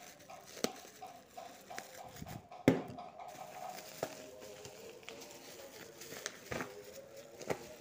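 Hands handling a package in a black plastic mailer bag: scattered soft clicks and taps with light plastic rustling, the sharpest knock about two and a half seconds in.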